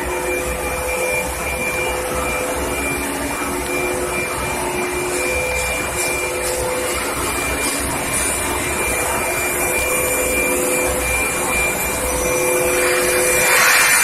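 Steady machine noise of a carbon-steel induction quenching line: a continuous whirring hum under a few thin steady tones, one high and two lower ones that break off and resume.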